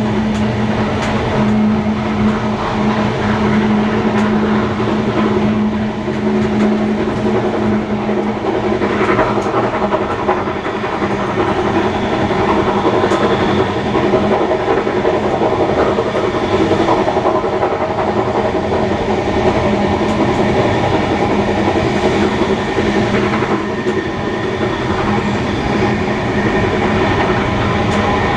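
Heritage steam-hauled passenger train running along the line: a steady rumble of wheels on the rails with clickety-clack over the rail joints and a constant hum.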